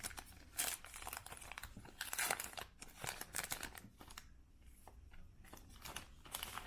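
Trading-card pack wrapper being torn open and crinkled by hand, in irregular rustling bursts.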